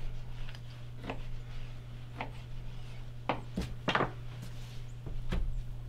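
Knife slicing a venison roast into steaks on a plastic cutting board, the blade knocking on the board with each cut. The knocks come about once a second, with three in quick succession about halfway through.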